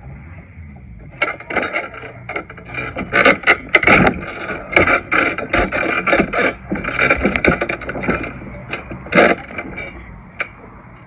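Trampoline bed and springs knocking and rattling as a person moves and lands on the mat, a dense run of sharp clicks and thuds from about a second in that dies away near the end.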